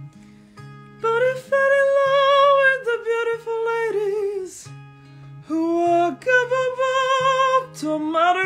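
A man singing a slow melody with vibrato, accompanying himself on a Stratocaster-style electric guitar with a capo. The singing starts about a second in and breaks off briefly around the middle before going on.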